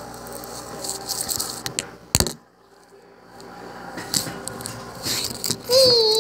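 Handling noise of a camera moved about an aquarium: irregular rattling and clicking, with a sharp knock about two seconds in and then a moment of near silence. A short wavering tone comes near the end.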